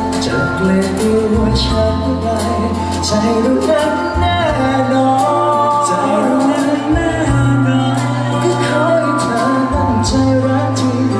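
Two male singers performing a Thai pop song live through microphones over backing music with a steady bass line.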